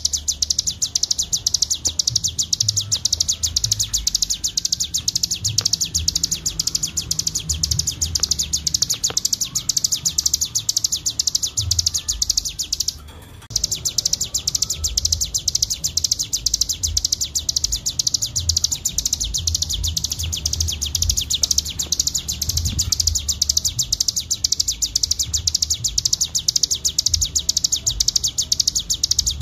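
Cigun songbird singing a continuous, very rapid high-pitched trill in the 'ngebren' style used as a masteran tutor song, breaking off once for about half a second near the middle.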